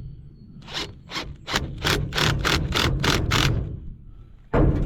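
Rubber Fernco coupling being worked onto clay field tile: a run of short rubbing scrapes, about three a second, then a louder knock near the end.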